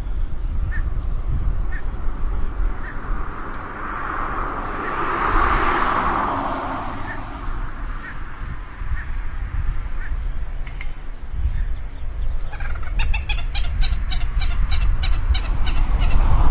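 Birds calling over a steady low rumble, with a hazy swell of sound about a third of the way in and a quick run of sharp clicking calls near the end.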